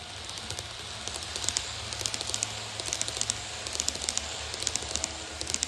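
HO-gauge model train running along the layout track, its wheels making a rapid, irregular clicking over the rail joints, with a steady low hum underneath.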